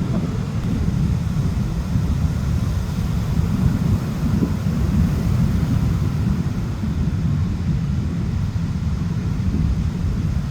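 Fishing boat's motor running steadily as a loud low rumble, mixed with wind on the microphone.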